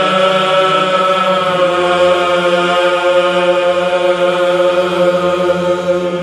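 Byzantine chant: voices holding a long, slow note over a steady low drone (the ison), with no words picked out.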